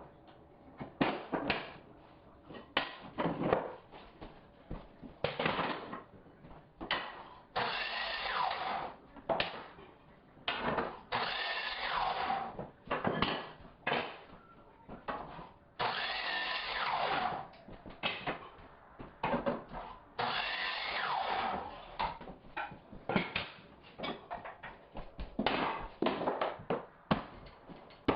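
A power tool like a drill runs in short bursts of one to two seconds, its pitch rising and falling within each burst. Many sharp knocks and taps fall between the bursts.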